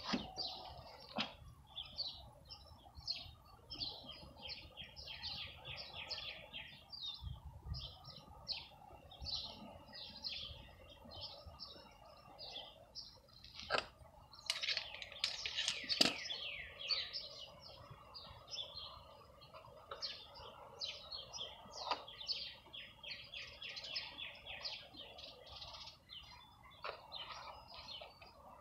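Small birds chirping steadily in rapid, repeated high chirps. A few sharp clicks stand out, one right at the start and a couple about halfway through.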